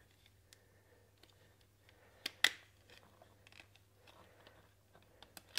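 Small plastic clicks and ticks as the lens is worked out of the soft plastic frame of a pair of sports sunglasses, with two sharper snaps close together about two and a half seconds in.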